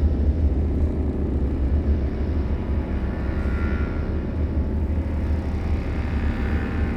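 Horror ambience drone: a deep, steady low rumble, with a faint higher tone that swells and fades about halfway through.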